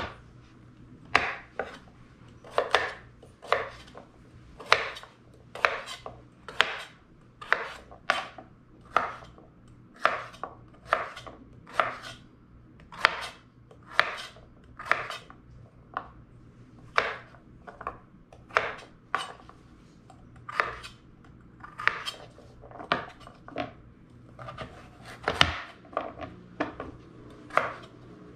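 Kitchen knife chopping raw sweet potato into chunks on a wooden cutting board: a steady run of sharp knocks of the blade through the potato onto the board, about one a second, with one harder stroke near the end.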